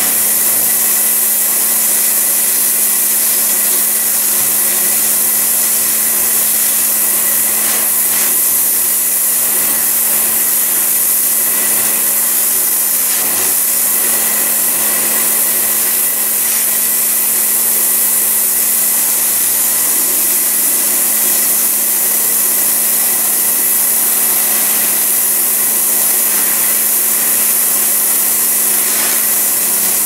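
Pressure washer running: the steady hiss of the water jet over a constant motor hum, with no change in pace.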